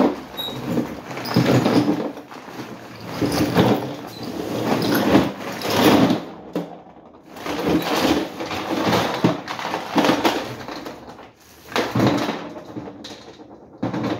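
Lead fishing sinkers clattering out of a plastic shopping bag onto a plastic folding table in repeated bursts as the bag is shaken, with the bag rustling.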